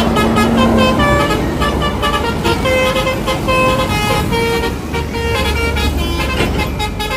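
Bus telolet horn, a Basuri multi-tone air horn, playing a quick tune of short notes that change pitch, over the low rumble of the bus's engine.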